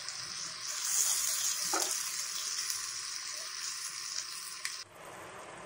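Chopped tomato sizzling in hot mustard oil and ghee with fried onion masala in a kadhai, stirred with a spatula. The sizzle drops sharply about five seconds in.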